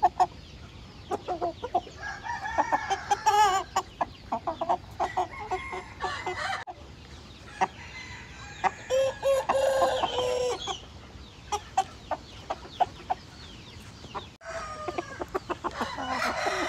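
Roosters crowing several times, each crow a second or more long, with short sharp clucks in between.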